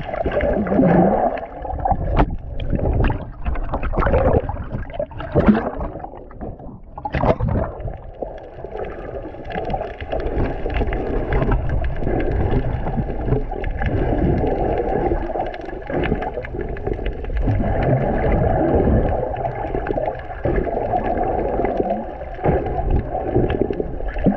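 Muffled underwater water noise around a snorkeller's submerged camera: a low, steady sloshing and gurgling, with sharp clicks and splashes in the first several seconds before it settles into a steadier wash.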